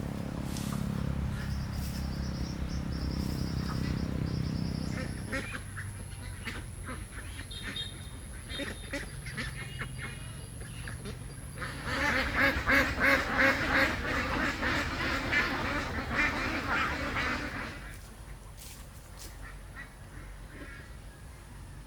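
Domestic ducks quacking, loudest in a run of rapid quacks about halfway through. A low motor rumble sounds for the first few seconds and then stops.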